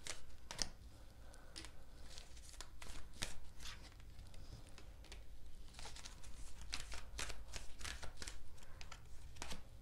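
A deck of oracle cards being shuffled by hand: an irregular run of crisp card flicks and rustles, with cards dropping out onto the table.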